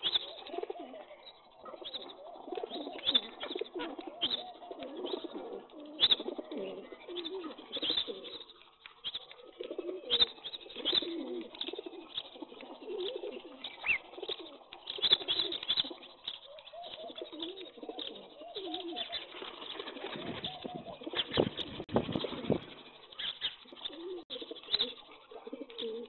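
A flock of rock pigeons cooing, with overlapping low, warbling coos, over many short sharp taps of beaks pecking grain off the concrete floor.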